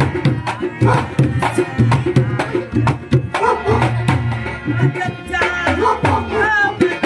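Harmonium and dholak hand drums playing a folk ghazal accompaniment: steady held harmonium chords under quick, dense drum strokes. A brief wavering high note sounds near the end.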